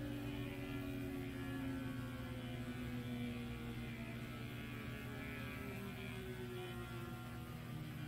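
Small electric pet paw trimmer running with a steady hum while it trims the fur between a dog's paw pads, with a few higher tones that slowly sink in pitch.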